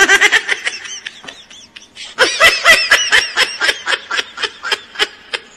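A person laughing hard in rapid, high-pitched bursts that start suddenly, with a louder stretch from about two seconds in.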